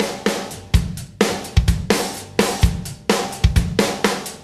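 Background music carried by a drum kit: a steady beat of kick, snare and cymbal hits, about two strong hits a second.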